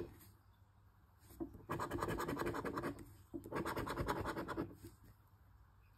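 Scratching the coating off an instant scratch-off lottery ticket: two spells of quick, rasping strokes, each about a second and a half long, with a short pause between.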